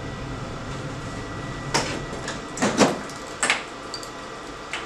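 Front door of a Necta Krea Touch coffee vending machine being swung shut and locked: a few knocks and clicks around two and three seconds in, then a sharp click near the end.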